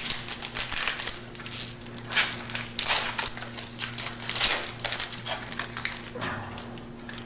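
Baseball card packs and cards being handled, a run of irregular crinkling and rustling of card wrappers and card stock, with a faint steady low hum underneath.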